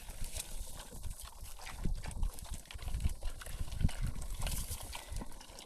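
Wind buffeting the microphone, with irregular squelching footsteps and knocks in wet mud.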